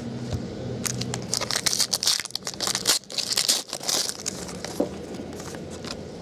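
A foil trading-card pack wrapper being torn open and crinkled. A rapid flurry of crackling tears and crumples starts about a second in and dies down after about four seconds into quieter handling of the cards.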